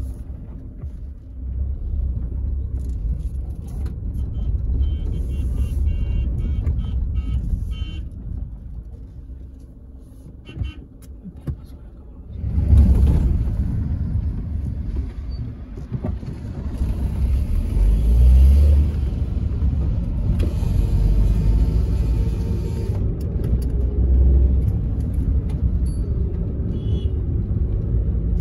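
A vehicle driving along a road: a steady low rumble of engine and road noise that eases off for a few seconds, then grows suddenly louder about twelve seconds in.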